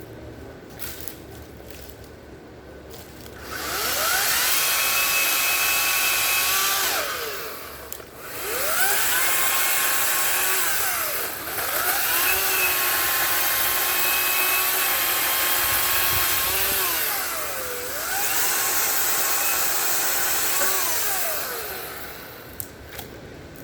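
Ryobi 40-volt brushless battery chainsaw run four times while limbing a branch: each time the motor and chain whine up in pitch, hold steady as it cuts, then wind down when the trigger is released. The first few seconds are quiet before the first run.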